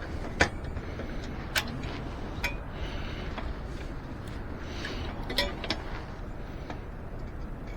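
Scattered sharp clicks and light knocks from hand work on an e-bike's rear wheel and tire, over a steady background hiss.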